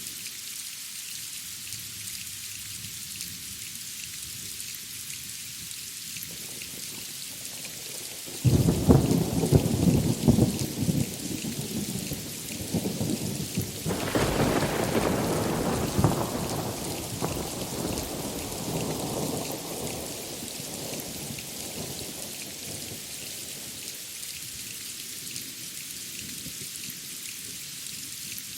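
Steady rain hissing, broken about eight seconds in by a sudden crackling thunderclap that rumbles on, swells again a few seconds later, then rolls away and fades while the rain keeps falling.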